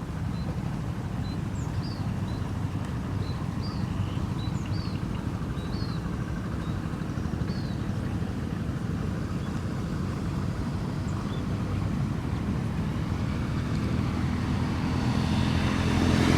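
A motor vehicle engine running with a steady low hum that grows louder near the end. Over it, in the first half, come faint short high chirps of swiftlets.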